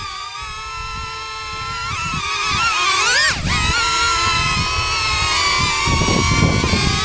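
DJI Neo-series mini drone flying close by, its four small propellers making a buzzing, whining hum of several wavering tones. About three seconds in the pitch sweeps up sharply and drops back as the motors change speed, and a burst of low rumble comes about six seconds in.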